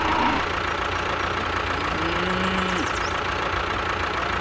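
Tractor engine running steadily at idle, an even low engine rumble with no change in speed.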